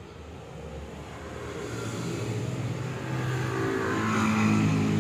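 Raider 150 motorcycle engine running with a freshly cleaned carburettor, growing steadily louder from about two seconds in.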